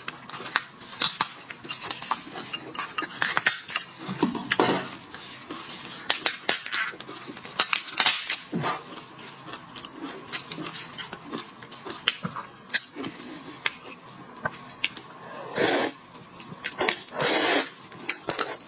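Lobster shell being cracked and picked apart by hand: scattered clicks and snaps of shell, with a few longer rasping sounds about four seconds in and twice near the end.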